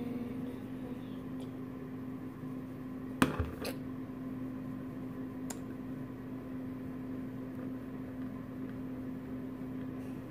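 Plastic makeup compact snapping shut about three seconds in, a sharp click with a smaller one just after, over a steady low hum.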